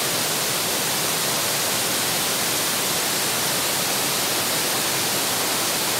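Waterfall's steady rush of falling water: an even hiss with no breaks or changes.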